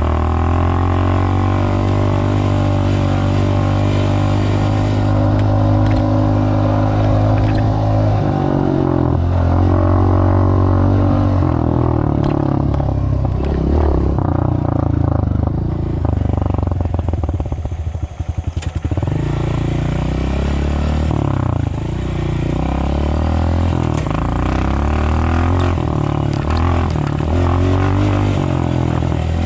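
Off-road riding vehicle's engine running under way in a low gear. It holds a steady pitch for a while, shifts about a quarter of the way in, backs off briefly about two-thirds of the way through, then rises and falls with the throttle.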